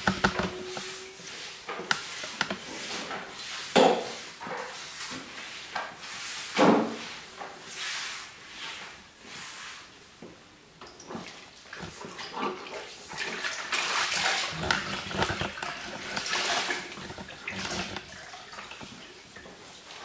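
A wet mop sloshed and wrung in a bucket of water and pushed over a tiled floor, with a few sharp knocks about 4 and 7 seconds in.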